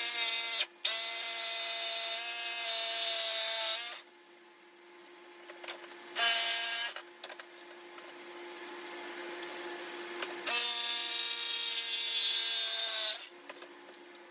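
Electric drill running at a steady pitch in several bursts of one to three seconds, working into wood.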